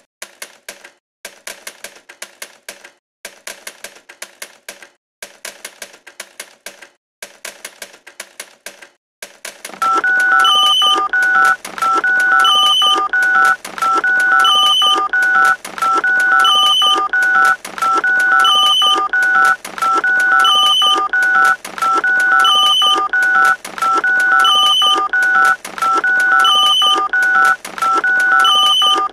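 Electronic soundtrack of telephone-like tones. For the first ten seconds there are clusters of rapid clicks about once a second. Then a louder repeating loop of beeps starts, stepping between two close pitches, with a higher beep about once a second.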